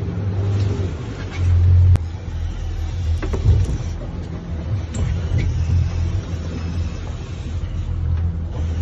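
A sportfishing boat's outboard engines running steadily at low speed: a low hum under a hiss of wind and water, briefly louder about a second and a half in.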